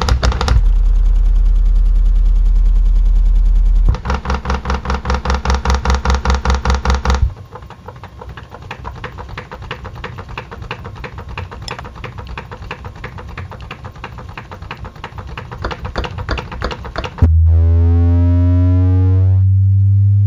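Subwoofer driver playing loud deep bass: a steady low tone, then rapid even pulsing bass from about four seconds in, a quieter stretch of fast ticking and rattling from about seven seconds in, and a loud steady low tone again about three seconds before the end.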